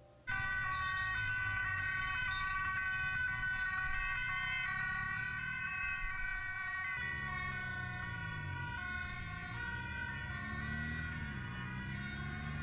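Emergency vehicle sirens from a passing ambulance escort, several siren tones sounding together and stepping in pitch, starting suddenly a moment in. Underneath is a low vehicle rumble that wavers in pitch in the second half.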